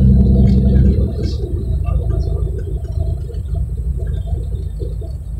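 Cirrus SR22's six-cylinder engine and propeller running, heard from inside the cabin while taxiing. The sound drops noticeably about a second in, then runs on steadily and more quietly.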